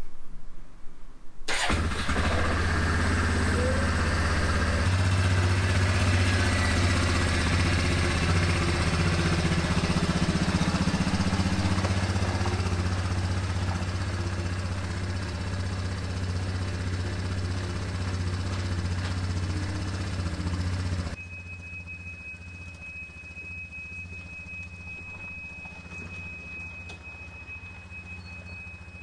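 An engine starting up abruptly about a second and a half in, then running steadily. Around twenty seconds in it drops off sharply to a quieter hum with a thin, steady high whine.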